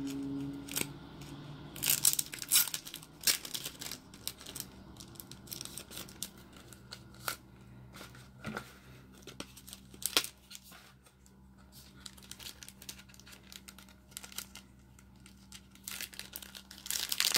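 A small package of sticker flakes being torn open and handled: packaging tearing and crinkling in short, scattered bursts, loudest about two to three seconds in.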